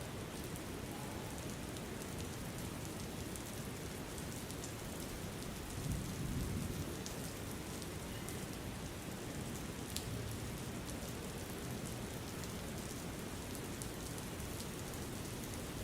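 Steady rain falling, with scattered drops ticking through the hiss and a brief low rumble about six seconds in.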